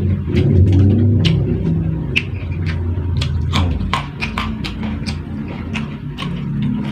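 Close-up eating sounds: chewing with many quick, crisp crunches and mouth clicks, over a loud low background drone.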